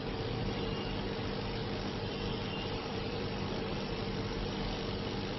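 Steady machine hum with an even hiss, from electrical bench equipment running during motherboard rework.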